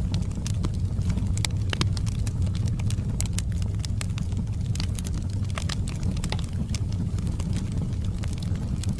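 Wood fire burning in a fireplace: a steady low rumble with frequent irregular sharp crackles and pops.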